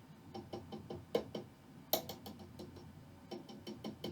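Light, irregular taps on the glass of a vacuum preamp tube seated in a running 1955 Magnatone 108 amplifier, a microphonics test: a string of small clicks, each with a short ring. Hardly anything comes through the speaker, so the tube passes as good.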